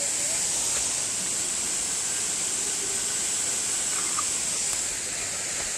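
Waterfall rushing: a steady, even roar of falling water with a strong hiss, unchanging throughout.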